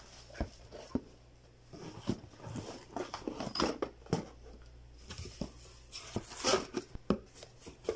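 A cardboard box being opened and a boxed set of stainless-steel spoons and forks in plastic wrap being handled: scattered light knocks and taps with brief crinkling of the packaging.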